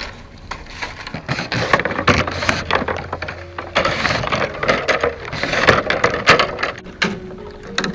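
Green bamboo strips being woven by hand on a woven bamboo mat: strips rustling and scraping against one another in bursts, with sharp clicks and snaps as they are bent and tucked through.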